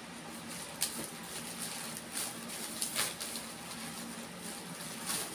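Scissors snipping through packing tape and plastic wrapping on a parcel, with the plastic rustling: a few short, sharp snips and crinkles, spaced irregularly.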